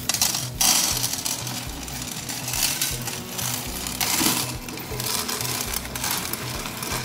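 Ceramic rings and small stones poured from a plastic basket onto the glass floor of an empty tank, clattering and rattling in several louder surges.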